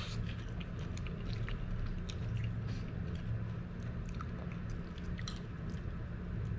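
A man eating spicy instant noodles with stir-fried purslane close to the microphone: wet chewing and slurping, many small mouth clicks, over a steady low hum.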